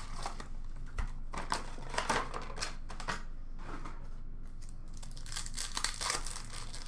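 Foil wrappers of Upper Deck hockey card packs crinkling as the packs are handled, in short irregular rustles, then a denser crinkling stretch about five seconds in as a pack is torn open.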